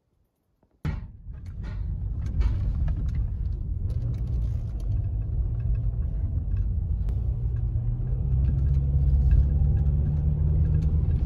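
Car driving slowly, heard from inside the cabin: a steady low road and engine rumble with scattered clicks and knocks. It starts abruptly about a second in and grows a little louder near the end.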